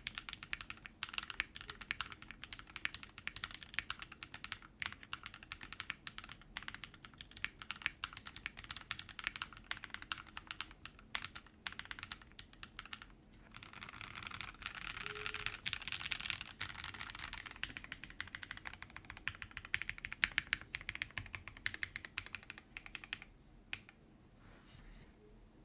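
Steady, fast typing on a mechanical keyboard: lubed Raed switches on a WT60-D Weirdflex with a polycarbonate plate in a resin case, struck through Cherry-profile doubleshot PBT keycaps. The keystrokes stop shortly before the end.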